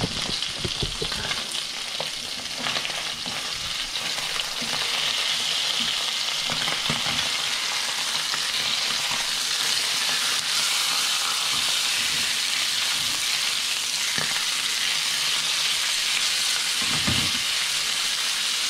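Sea bass fillets sizzling as they fry in oil in a non-stick pan while they are turned over with a spatula. There are a few light knocks, and the sizzle grows louder a few seconds in as the fillets are turned.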